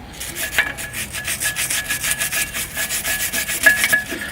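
Small wire brush scrubbing back and forth on the pad abutment surfaces of a Brembo six-piston brake caliper in quick, even strokes, cleaning them so the brake pads can slide freely.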